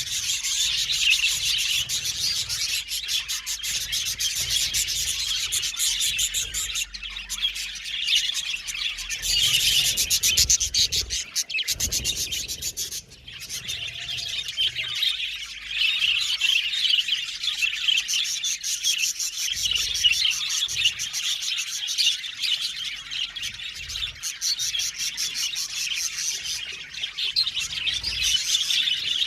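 A colony of budgerigars chirping and chattering continuously, many birds calling at once, with a brief lull about thirteen seconds in.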